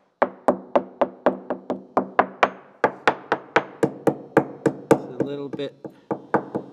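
Quick light hammer taps on a fiberglass boat hull's bottom, about five a second, each with a short ring, thinning out after about five seconds: a tap test sounding the laminate for loose, delaminated layers.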